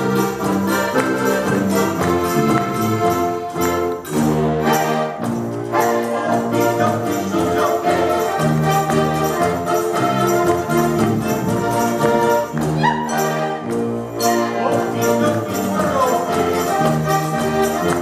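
An ensemble of diatonic button box accordions playing a polka together, full sustained chords over a steady, even beat.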